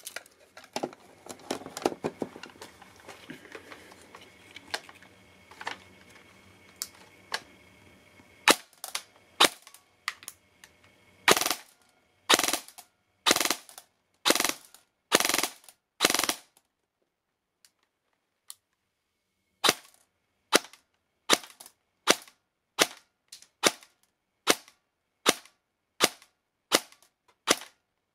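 Airsoft gun firing single shots into a chronograph, about one a second, with a pause of about three seconds midway. The first eight seconds hold only light handling clicks as the gun is repositioned.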